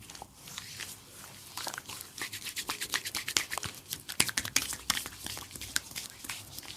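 Close-up rubbing and scrubbing on facial skin during a face cleanup: dense, irregular crackling clicks that are busiest in the middle.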